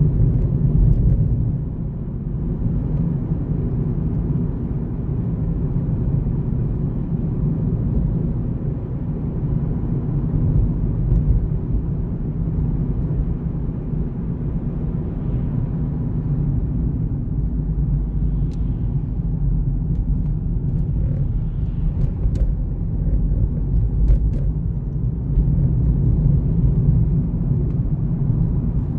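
A car's steady low driving rumble of tyres and engine, heard from inside the cabin while cruising on an open road, with a few faint clicks in the second half.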